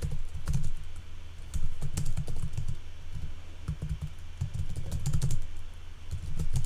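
Typing on a computer keyboard: keystrokes clicking in quick, uneven runs with short pauses between them.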